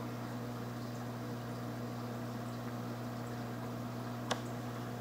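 Steady low hum with a faint hiss from running aquarium equipment, and one short sharp click about four seconds in.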